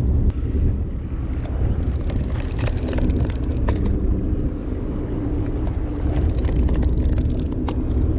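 Steady low rumble of the fishing boat's engine, with wind on the microphone. A few brief sharp clicks are heard over it.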